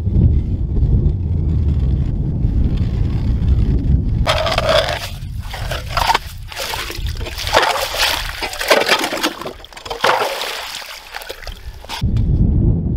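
Hand ice auger churning slush and water in a freshly drilled hole through lake ice: irregular wet scraping and sloshing from about four seconds in until near the end. Before and after it, wind rumbles on the microphone.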